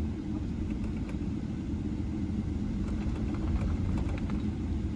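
Steady low rumble inside the cabin of a Boeing 777-300 taxiing after landing, with the engines and airflow making a constant drone and a faint hum.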